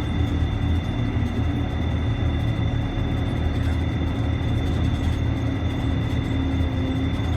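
Steady interior noise of a moving vehicle: a continuous low rumble with steady whining tones over it.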